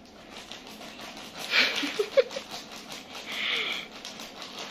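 A baby's hands patting and rubbing a sequined fabric gift pouch, giving soft rustling and crinkling. There is a louder rustle about a second and a half in and a few brief small baby noises.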